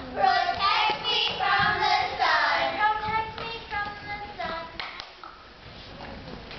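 Children's voices singing a short melodic line, which stops about five seconds in, leaving quieter background noise.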